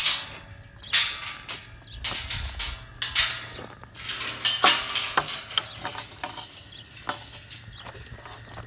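Irregular metallic clinks and rattles from a steel tube pasture gate being handled, with a denser burst of rattling about halfway through.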